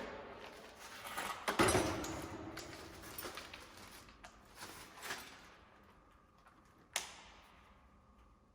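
Metal tools and car parts clanking and rattling while being handled: a series of knocks and clatter, the loudest about a second and a half in and another sharp knock about seven seconds in, getting quieter in between.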